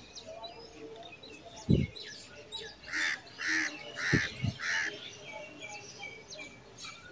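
Birds calling: small birds chirping throughout, and one larger bird calling four times in quick succession a little before the middle. A few low thumps come in between, the loudest about two seconds in.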